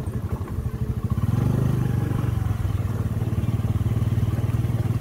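Small motorbike engine running as the bike rides along a rough dirt track, its low, even pulse getting louder about a second in.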